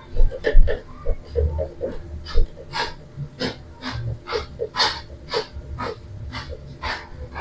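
Irregular light clicks and taps of metal motorcycle engine parts being handled, roughly two a second, some with a brief ring.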